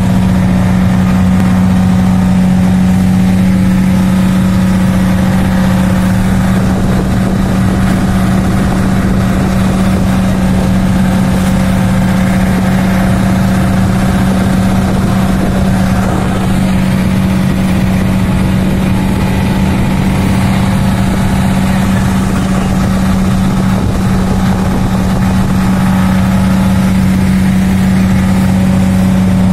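Wooden passenger boat's engine running steadily under way, a constant low hum that does not change.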